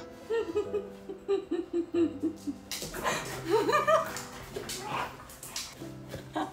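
A woman laughing hard: a quick run of short laughs, then a louder, higher peal about three seconds in, over soft background music.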